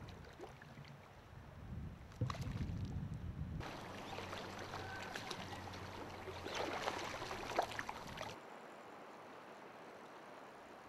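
Flowing river water and water moving around a wading angler's legs, with a low wind rumble on the microphone at first and scattered small splashes. The sound changes abruptly twice, about a third of the way in and again near two-thirds, as one outdoor recording gives way to another.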